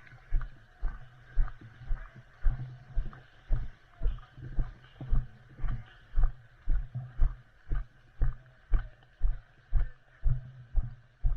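Footsteps walking at a steady pace, about two a second, each a dull thump.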